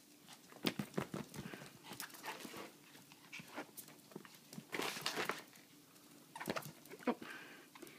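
Small dog chewing and tugging at a plush octopus squeaky toy: irregular soft rustles and short clicks from the fabric and the dog's mouth, with a few faint brief squeaks.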